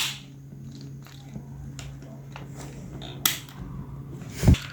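Handling of a disassembled standing fan's parts: a sharp click at the start, another about three seconds in, and a heavier knock near the end, over a steady low hum.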